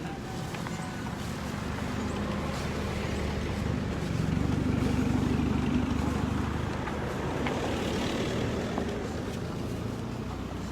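A road vehicle's engine running as it passes, swelling to its loudest about halfway through and then fading.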